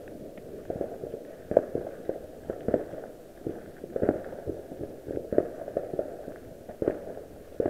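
Fireworks going off at a distance: an irregular string of bangs and pops, often several a second and overlapping, with a few louder cracks standing out.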